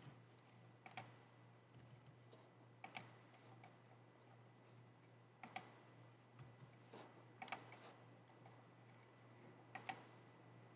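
Faint, widely spaced computer mouse clicks, about six in all, some in quick pairs, over a steady low electrical hum.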